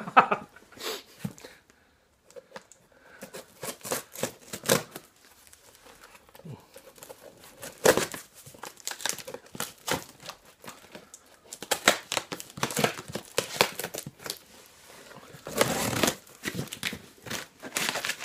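Swiss Army knife slitting packing tape on a large cardboard box, with irregular rasping, tearing and crinkling of tape and cardboard as the box is opened.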